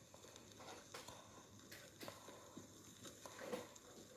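Near silence: quiet room tone with a few faint, scattered clicks and taps.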